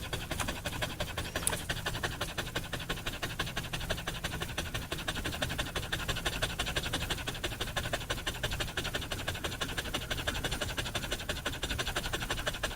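A dog panting rapidly and evenly: quick breathy in-and-out breaths at a steady pace.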